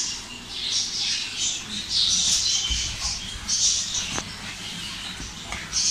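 Hands kneading soft maida dough in a plastic bowl, making short, uneven rubbing sounds.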